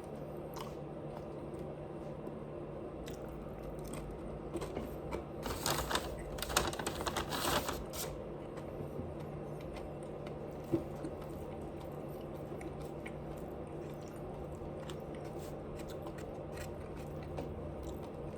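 Close-up crunchy chewing for a few seconds, about a quarter of the way in, over a steady low hum. A single sharp click a little past halfway.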